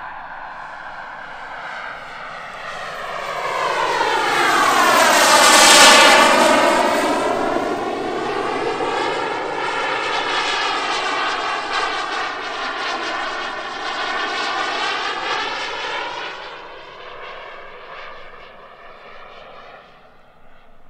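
Turbine engine of a giant-scale radio-controlled F-100 Super Sabre model jet flying past: a rushing jet noise that swells to its loudest about six seconds in as it comes close, with a thin high whine that drops in pitch as it passes. It stays strong through the bank and fades over the last few seconds.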